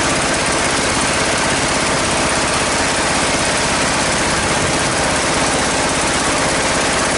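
Sawmill band saw driven by a 24 hp engine, running steadily with a fast, even engine beat.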